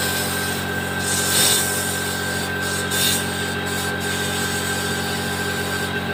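Compressed air hissing steadily from an air blow gun, with a steady whistling tone, as it is blown into the cultivator engine's oil drain to force out the old, blackened engine oil.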